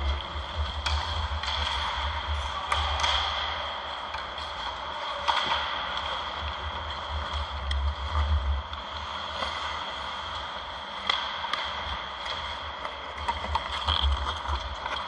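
Ice hockey play: skate blades scraping the ice and sharp clacks of sticks and puck every second or two, over a steady low rumble and a faint high whine.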